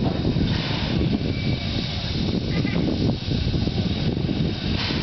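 Steam locomotive standing on a hand-turned turntable, giving a steady low rumble with a hiss of steam over it.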